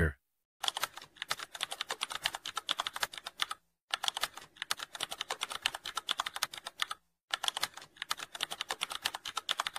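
Rapid computer keyboard typing clicks, a typing sound effect, in three runs. It starts about half a second in and breaks off briefly twice, at about three and a half and seven seconds in.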